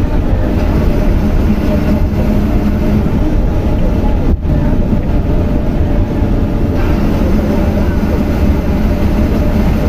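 Steady drone of a bus's engine and road noise heard from inside the cabin while it drives along at speed, with a momentary break about four and a half seconds in.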